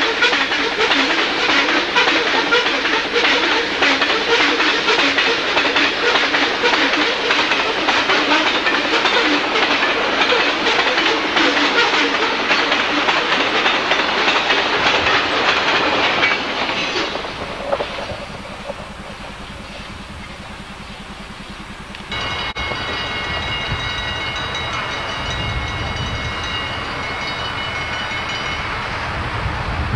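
Freight train of tank cars rolling past close by: steady rumble with fast clatter of wheels over rail joints. The sound falls away about seventeen seconds in as the end of the train passes. From about twenty-two seconds in, a quieter steady low rumble with a few held high tones.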